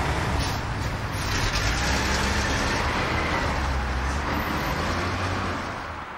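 Steady rumble and hiss of road traffic, with no clear tones. It fades in the last second and cuts off abruptly.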